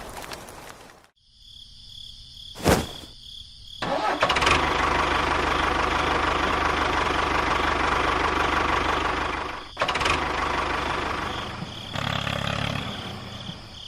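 A vehicle engine starting and then running steadily, preceded by a single sharp click; the sound briefly dips and shifts character near the end.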